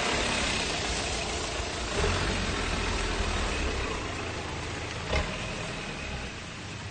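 Off-road 4x4 engine running at low revs, a steady rumbling drone, with two short knocks, one about two seconds in and a sharper one about five seconds in; the sound eases off toward the end.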